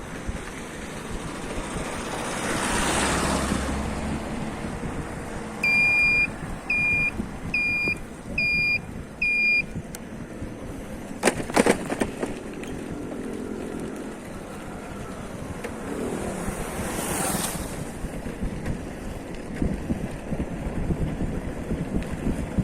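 Road traffic noise with wind buffeting the microphone, and two vehicles passing with a swelling whoosh that rises and fades. About six seconds in come five evenly spaced high electronic beeps, and a few sharp clicks follow around the middle.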